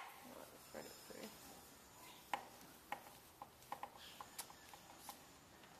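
Quiet, scattered clicks and light taps of small parts being handled and fitted back together, irregularly spaced and each brief.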